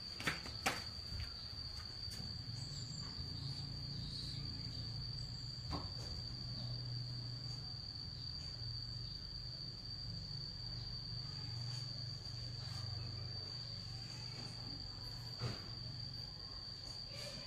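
An insect's steady, unbroken high-pitched trill, with a few light clicks or knocks and a low rumble beneath it.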